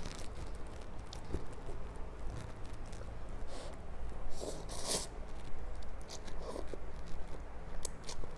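Close-miked eating of spicy instant cup noodles in soup: chewing and mouth noises with small clicks, and a few short noisy slurps around the middle.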